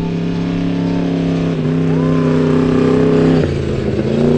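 Trophy Truck race truck accelerating past on dirt, its engine climbing steadily in pitch and loudness. About three and a half seconds in the engine note drops sharply, then climbs again.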